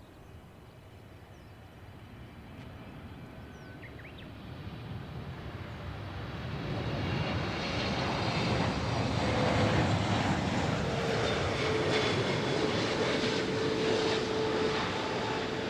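Jet engines of a Boeing 747 freighter getting steadily louder as the aircraft approaches, then holding loud, with a steady whine coming in over the noise in the later part.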